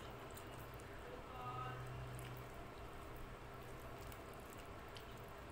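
Fingers squishing rice and dal together on a plate, with small wet clicks and squelches scattered throughout, over a steady low hum.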